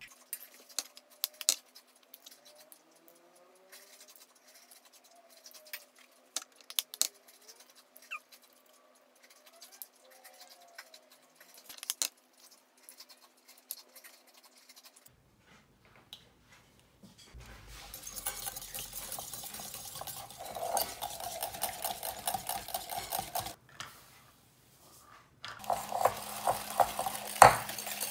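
A few sharp taps of eggshell on a bowl as eggs are cracked and separated. Then a wire whisk beats egg yolks and sugar in a glass bowl: a fast, continuous metallic rattle in two spells. The second spell is louder, with sharp knocks of the whisk against the glass.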